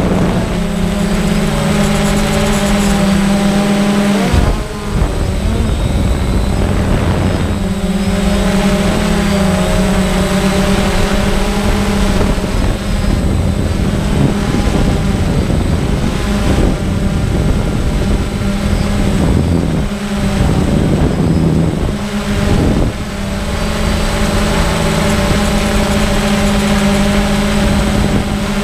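Drone's electric motors and propellers whining steadily, heard close through the drone's own onboard camera. The pitch shifts as the throttle changes, and the motor tone drops away briefly twice.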